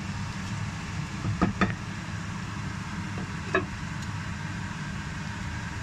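Tomato-onion gravy simmering in a nonstick pan over a steady low hum, with a few light clicks as the spatula and then a glass lid are handled, about one and a half and three and a half seconds in; the lid closes over the pan so the gravy can boil.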